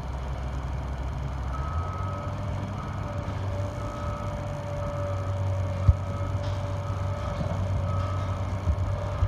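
Heavy construction machinery running with a steady low engine rumble, while a backup alarm beeps about once a second. A single sharp knock comes about six seconds in.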